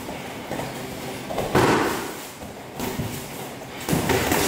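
Two loud, dull thumps with a noisy tail, one about a second and a half in and another near the end.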